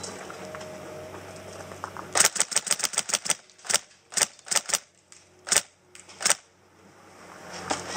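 Tokyo Marui next-generation electric CQB-R airsoft rifle firing: a rapid full-auto burst of sharp cracks about two seconds in, lasting about a second, then several single shots spaced over the next few seconds.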